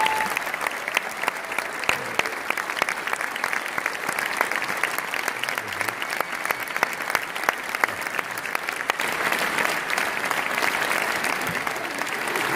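Large audience applauding: steady, dense clapping from many hands.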